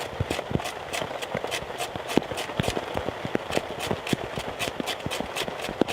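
Fatwood stick being scraped in quick, even strokes, about three or four a second, across a small steel grater card (Readyman Tinder Grinder), rasping off fine shavings for tinder.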